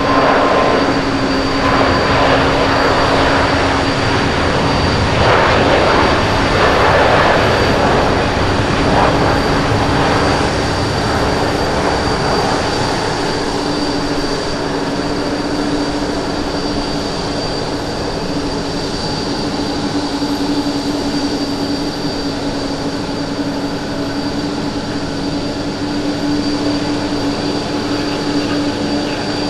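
Boeing 777 twin jet engines at takeoff thrust: a loud rushing roar with a steady low hum and a high whine through it, loudest as the airliner rolls and lifts off, then easing slowly as it climbs away.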